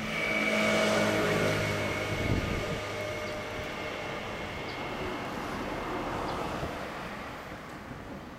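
Vehicle noise passing by: it swells about a second in and then slowly fades.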